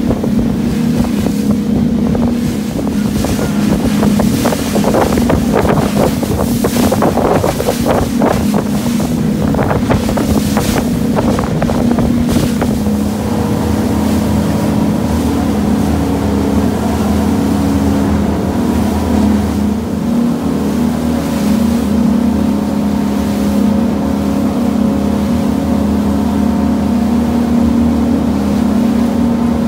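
Twin Suzuki four-stroke outboards driving an aluminum catamaran at speed: a loud, steady engine drone. Through the first dozen seconds there is wind on the microphone and rushing spray as the hulls slap through the waves; after that the engine drone is heard more cleanly.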